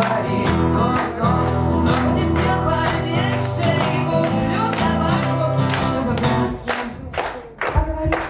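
A woman singing into a microphone over a strummed acoustic guitar, played live. The music falls away about seven seconds in.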